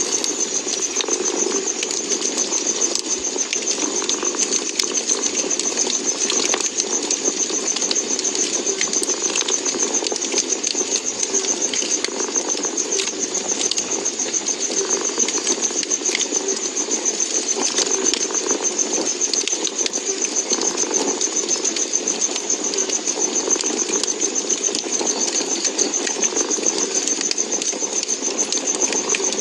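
A cat purring steadily, close up, with a fireplace crackling in scattered small pops.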